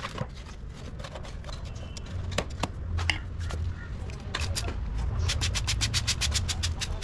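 Plastic trigger spray bottle pumped rapidly, from about four seconds in, in quick hissing squirts about six a second, misting water onto freshly potted soil. Before that, a hand trowel makes scattered scrapes and taps in the soil, over a steady low hum.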